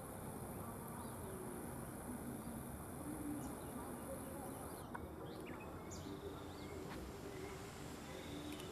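Outdoor ambience of insects buzzing steadily, with a thin high buzz that stops about five seconds in, and a few short bird chirps.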